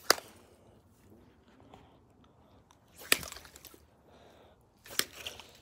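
Three sharp cracking snaps a few seconds apart.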